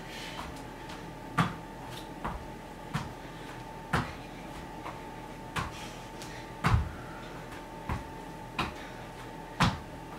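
Bare feet and hands landing on a yoga mat over a tile floor during burpees: a string of about nine short thuds at uneven spacing, the loudest about two thirds of the way through, over a faint steady hum.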